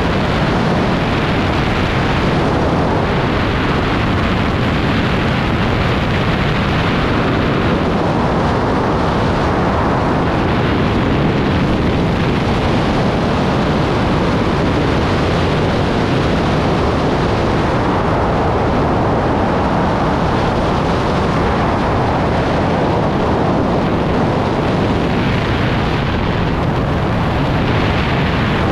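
Loud, steady rush of freefall wind blasting over the microphone of a camera falling with skydivers.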